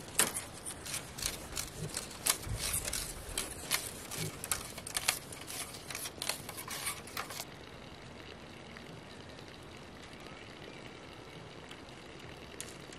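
A large blade splitting and shaving green bamboo into thin strips: a quick run of sharp cracks and scraping clicks for about the first seven seconds. It then gives way abruptly to a steady low outdoor hiss.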